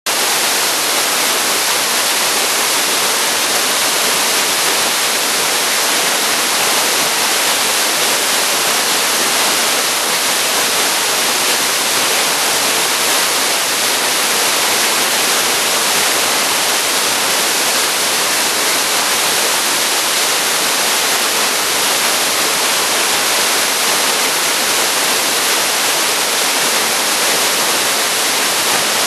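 Waterfall pouring, a loud, steady rush of falling water with no let-up.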